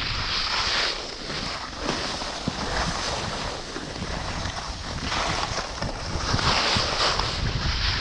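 Skis sliding and scraping over packed snow, the hiss swelling and fading with each turn, with wind buffeting the microphone.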